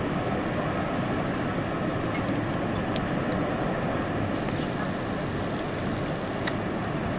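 Steady rushing of Niagara Falls' American Falls, an even, unbroken water noise.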